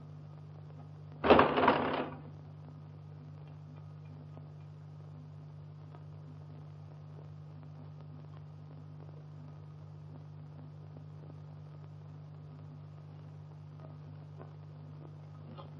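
Steady low hum and hiss of an early 1930s film soundtrack, with one short, loud burst of noise about a second in.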